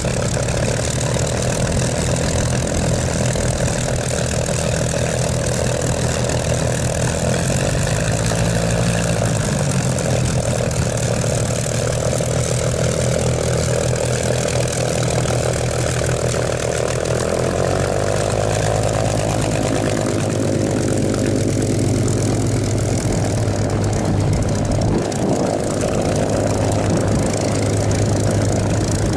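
Supermarine Spitfire FR Mk.XVIIIe's Rolls-Royce Griffon V12 engine running at low power as the fighter taxis, propeller turning, a steady low engine note. The engine speed rises and falls briefly about eight to ten seconds in, and the note shifts slightly a little past halfway.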